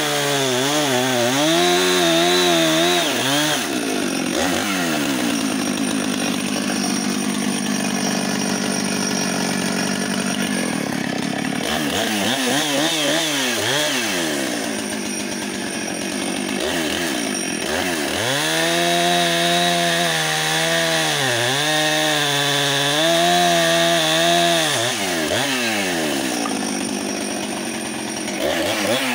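Husqvarna 455 Rancher two-stroke chainsaw at high revs cutting down into the end grain of a wooden stump. Its engine pitch repeatedly sags and picks back up as the chain loads in the cut and frees again.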